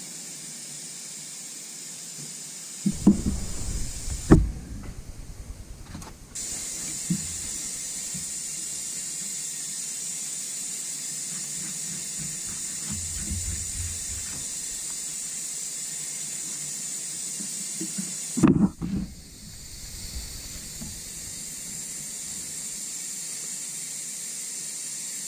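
Compressed-air hose hissing steadily in the background, a high constant hiss, with a few knocks about three to four seconds in and again about eighteen seconds in.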